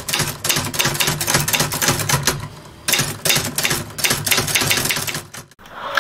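Typewriter key clacks used as a sound effect, fast and irregular, in two runs: the first fades out a little before halfway, the second starts just after and stops shortly before the end.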